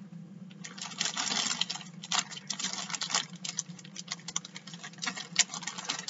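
Rapid, irregular crinkling and rustling of plastic packaging as a CD album is handled and taken out, over a steady low electrical hum.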